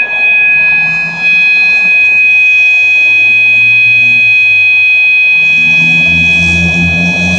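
System Sensor MA/SS-24 fire alarm horn sounding a continuous steady tone, set to steady rather than temporal pattern. A low drone joins about five and a half seconds in.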